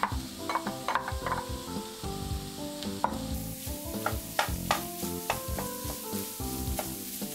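Minced beef and pork sizzling on top of fried onions in a frying pan, with a wooden spatula stirring it and knocking and scraping on the pan several times. Background music with held notes plays underneath.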